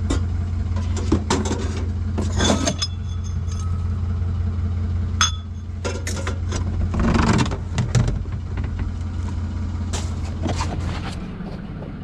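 A vehicle engine idling with a steady low hum, under scattered clinks and rattles of discarded items being handled and moved.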